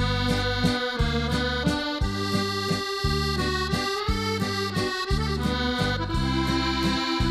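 Background music: an accordion tune over an even, rhythmic bass accompaniment.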